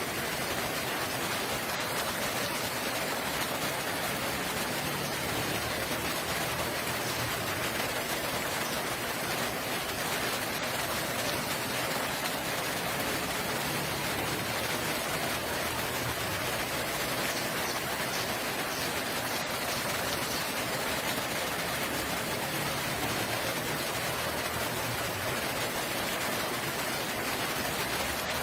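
Steady rainfall, an even hiss of rain with no change in strength.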